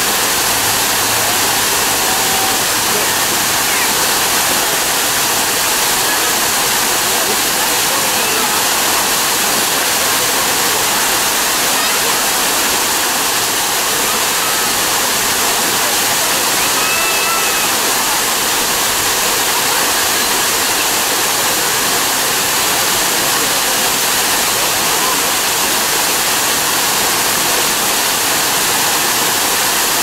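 Waterfall spilling down a rock face into a pool: a steady, loud rush and splash of falling water.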